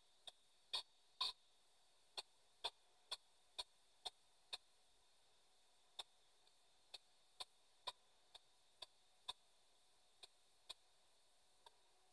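P-SB7 spirit box sweeping the AM radio band through an external speaker, giving a faint, sharp click with each station hop, about two a second, over low hiss; the clicks come unevenly and weaker in the second half.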